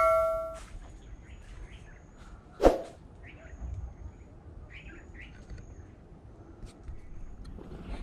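A bell-like notification chime rings out and fades away within the first half-second. A single sharp click comes about two and a half seconds in. Faint bird chirps and thin high whistles are heard against a quiet forest background.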